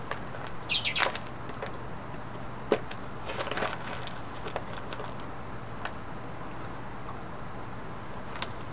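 Crowd of engineers celebrating a successful landing in a busy control room: steady crowd murmur with scattered claps and hand slaps, and a short high-pitched cry about a second in.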